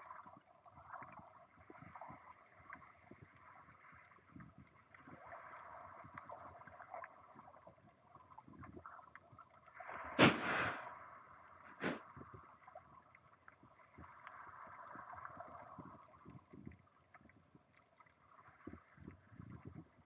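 Underwater ambience picked up by a camera lying on the seabed: a faint muffled watery hiss with scattered small crackling ticks. About halfway through comes a sharp knock, then a second, weaker one a moment later.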